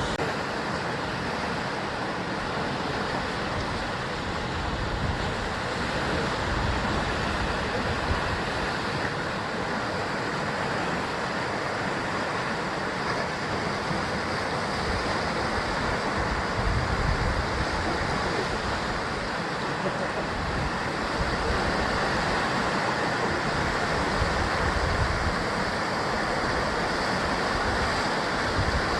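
Sea surf washing steadily against the basalt columnar-joint cliffs of the coast, a continuous even rush of waves with no single breaker standing out.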